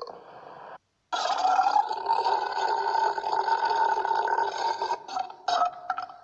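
One long, drawn-out human burp of about four seconds, starting about a second in, with a few short sounds near the end.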